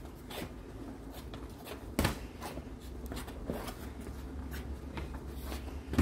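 Boxing gloves hitting and trainers scuffing on patio paving slabs during light sparring: a scatter of soft taps and shuffles, with a sharp smack about two seconds in and another at the end.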